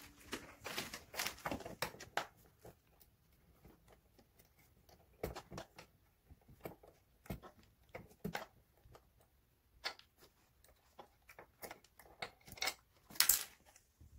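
Scattered small clicks, taps and rustles of hand-assembling a gaming chair: a hex key working a bolt at the metal backrest bracket while parts are handled. A louder burst of handling noise comes about a second before the end.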